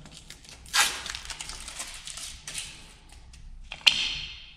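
Tape guide strips being pulled off a wall: short ripping and rustling sounds, with a sharp click and a brief rip about four seconds in.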